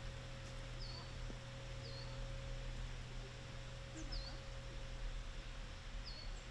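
A small bird calling: four short, high, down-sliding chirps spaced a second or two apart, over a steady low hum.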